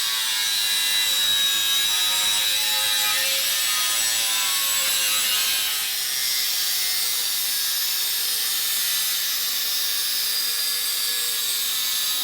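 A power sanding or grinding tool working steadily against the workpiece: an even, high-pitched abrasive hiss with a faint ringing tone, slightly changing in character about six seconds in.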